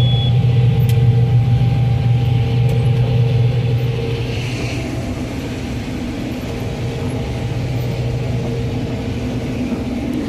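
Combine harvester running steadily while harvesting corn: a constant low engine drone with a steady mechanical hum over it, easing slightly in level about four seconds in.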